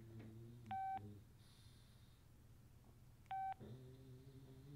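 Old flip phone's key tone beeping twice, two short beeps about two and a half seconds apart, as a button is pressed to step to the next stored picture. A faint low hum lies underneath.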